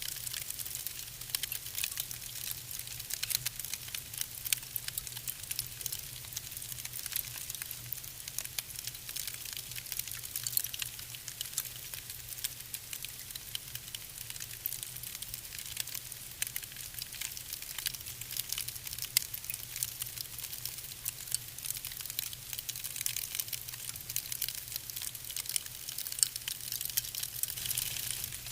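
Fire burning in a fireplace, crackling steadily with a constant stream of small, irregular snaps and pops over a faint low hum.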